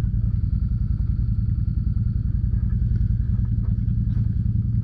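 Can-Am Commander side-by-side's V-twin engine running at a steady, even low drone as the machine crawls along a rough, muddy trail.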